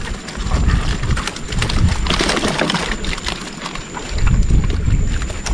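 Freshly caught fish flapping and slapping against the wooden floor and sides of a boat as a landing net of them is tipped in: a rapid, irregular patter of wet knocks.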